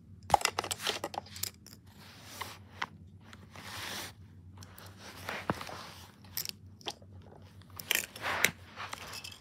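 Handling noise from a handheld camera: irregular rustling, scraping and clicks as it is moved about close over a carpet.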